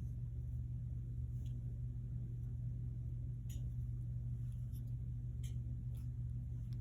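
A steady low hum, with four faint clicks as a small plastic alarm door sensor is handled and turned over in the hands.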